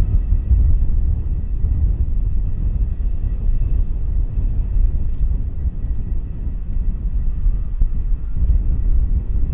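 Jet airliner engines rumbling low and steady, with a faint high whine that fades about halfway through.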